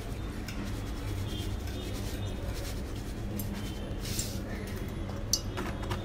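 Beaten eggs being stirred with a wooden-handled metal utensil in a china plate: faint scrapes and light taps of metal on the plate, with one louder brushing scrape about four seconds in, over a steady low hum.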